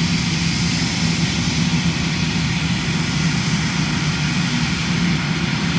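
Jet engines of a wide-body airliner running at take-off power: a steady low drone with rushing noise above it.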